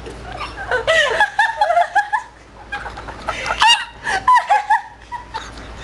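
High-pitched laughter from young people, in two spells: one about a second in and another a little past three seconds.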